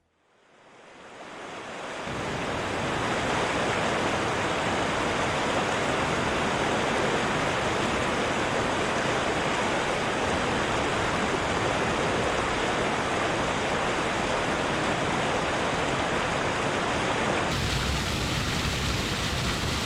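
Steady rushing water of a waterfall, fading in over the first two seconds, its character shifting slightly near the end.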